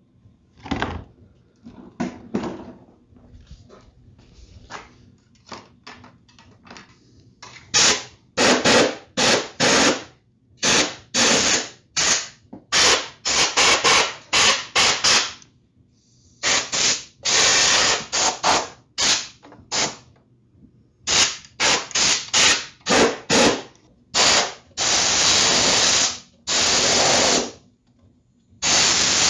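Compressed-air blow gun fired in many short blasts, then a few longer ones, blowing grass clippings out from under a lawn mower's belt guard. Quieter knocks and clatter of handling come before the blasting starts, about eight seconds in.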